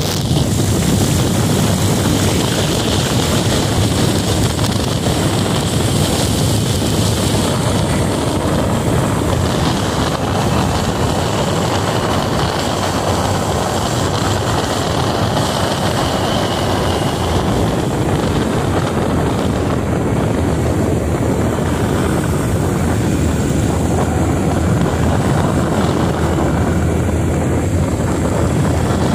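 Motorcycle riding steadily along a road: a continuous engine drone mixed with rushing wind and road noise, with no breaks.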